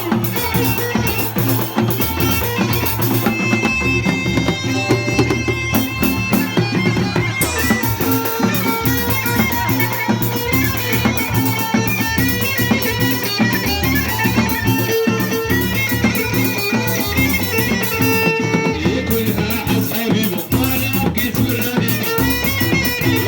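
Live band music, with violin over a steady drum beat.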